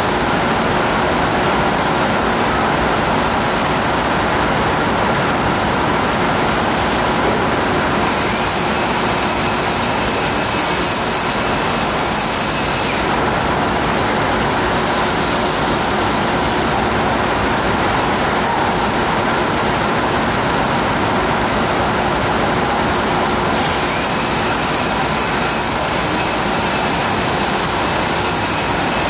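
Steady machinery noise of a glass-processing factory line, a loud even hiss with a faint hum of motors. A thin higher whine comes in twice for about four or five seconds, about a third of the way in and again near the end.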